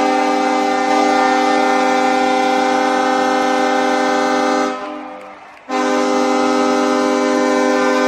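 Hockey arena goal horn sounding a long, steady blast that fades out about five seconds in, then cuts back in sharply a second later for another blast.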